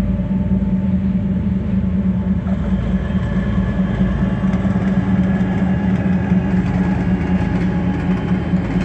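2M62 diesel locomotive running close by, its two-stroke diesel engines giving a steady low hum under a high turbocharger whistle that comes in about a third of the way through.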